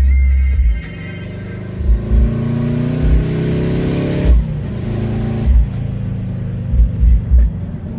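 Subaru Impreza GC8's turbocharged flat-four with a straight-through exhaust, accelerating: the engine note climbs, drops sharply about four seconds in at a gear change or lift-off, then climbs again. Repeated loud low thumps come through at irregular moments.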